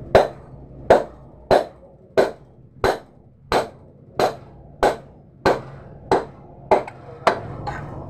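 About a dozen sharp knocks on a ceiling fan's metal motor housing, evenly spaced about two-thirds of a second apart, each ringing briefly.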